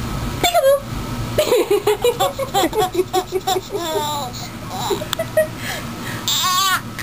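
Infant girl laughing: a high squeal, then a run of quick, short giggles, and another high squeal near the end.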